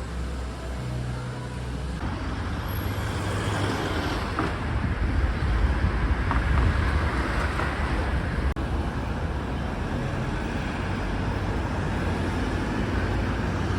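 Steady road-vehicle noise: an even rumble with a strong low end and no clear events, broken for an instant a little past halfway.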